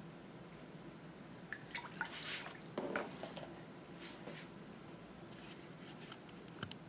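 A few faint, short wet squishes and light clicks about two to three and a half seconds in, from a paintbrush being worked in wet paint.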